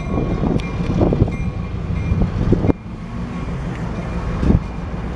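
Long Island Rail Road work train moving away down the track: a steady low rumble with a few sharp knocks, the level dropping nearly three seconds in.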